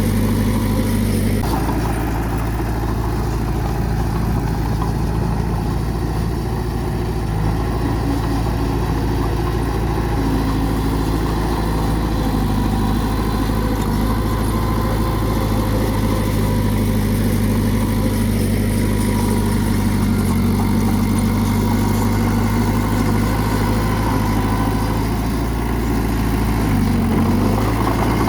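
Bulldozer's diesel engine running steadily throughout, with a brief dip in pitch near the end.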